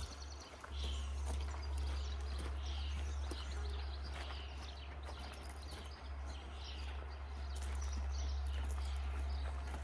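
Footsteps of someone walking, with small birds chirping over and over in short falling calls, over a low steady rumble.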